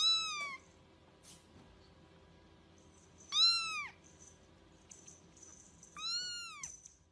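Young grey kitten meowing three times, about three seconds apart: high, thin mews that each rise and then fall in pitch.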